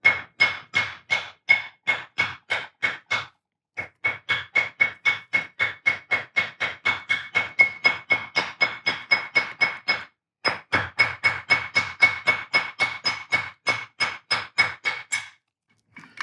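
Steady light hammer taps, about three to four a second with two short pauses, driving the chuck-key pinion into its tight hole in a six-jaw lathe chuck body. Each tap makes the steel chuck body ring with a clear high note.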